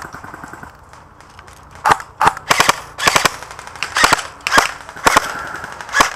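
Airsoft guns firing: sharp snapping shots, some single and some in quick pairs, starting about two seconds in and continuing at irregular intervals.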